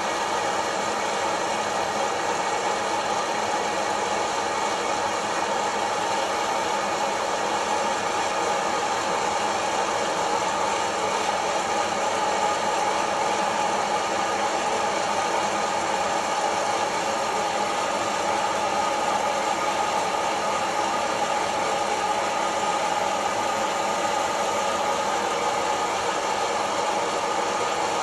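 Kaffelogic fluid-bed coffee roaster running mid-roast: the steady rush of its hot-air fan, with the beans rattling as they tumble in the roasting chamber.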